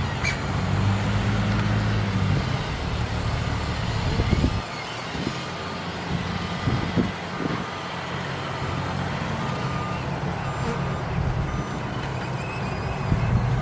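Heavy vehicle engine running steadily while a reversing alarm beeps in evenly spaced pulses, first in the opening seconds and again after about nine seconds.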